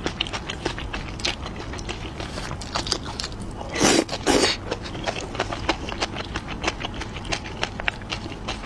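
Close-miked chewing of chili dumplings: a steady run of wet mouth clicks and smacks. About four seconds in come two louder, longer noisy rushes in quick succession.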